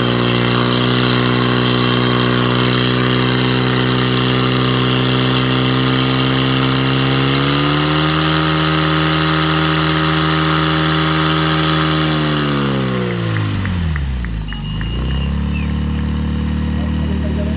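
Portable fire pump's engine running at high revs while pumping water through the attack hoses. A little past seven seconds it revs higher, then from about twelve seconds it winds down and settles to idle once the pumping ends.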